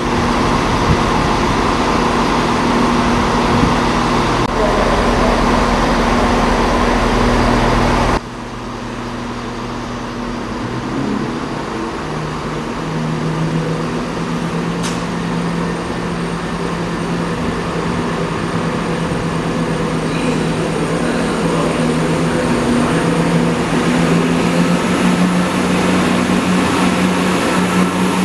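Diesel train engines running at a station platform. The sound is loud and steady for about eight seconds, then cuts abruptly to a quieter idling hum from CrossCountry diesel multiple units, which grows louder toward the end as another diesel train draws in alongside.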